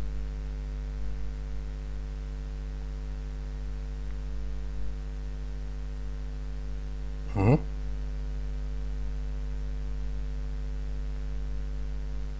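Steady electrical mains hum in the recording, with one short vocal sound from a person about seven and a half seconds in.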